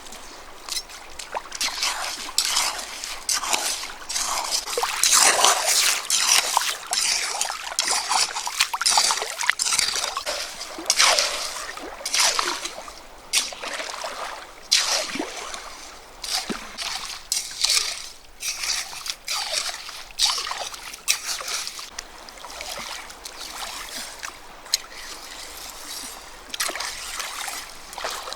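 Water splashing and sloshing in irregular bursts, with trickling between them, loudest in the first half.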